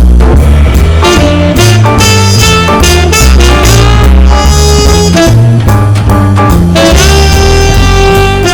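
Background music: upbeat jazz with a saxophone or brass lead over a steady drum beat and bass.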